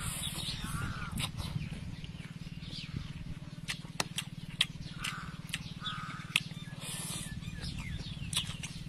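Close-up sounds of eating fried noodles: a slurp of noodles near the start, then wet chewing with frequent sharp mouth clicks, over a steady low hum.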